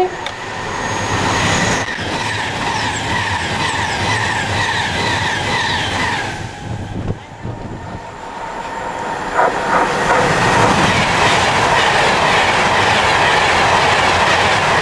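Train passing at speed on the main line: wheels rumbling and clattering on the track with a steady whine, dipping briefly about seven seconds in before a second loud stretch of train noise.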